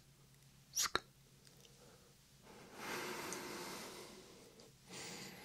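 Close whispered ASMR mouth sounds into a 3Dio binaural microphone: one short hissing 'sk' with a small click about a second in, then a long breathy hiss lasting about two seconds, and a shorter one near the end.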